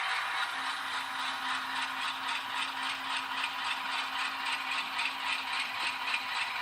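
N-scale GE C44-9W model locomotive's sound decoder playing its diesel engine sound through the model's tiny speaker, a steady rattly chug. A faint low hum starts about half a second in as the model is set moving forward at its first speed step.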